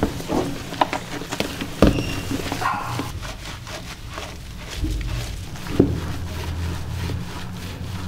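Sudden knocks and bumps during a cat's bath in a plastic tub, over a steady low hum, with a short animal call about two seconds in.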